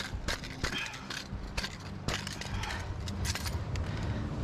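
Irregular metallic clinks and rattles of a lure's hooks and pliers as a freshly landed fish is unhooked, over a steady low rumble.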